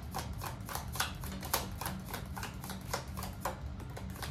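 A deck of round tea leaf fortune-telling cards being shuffled by hand: a fast, uneven run of light card clicks and flicks, several a second.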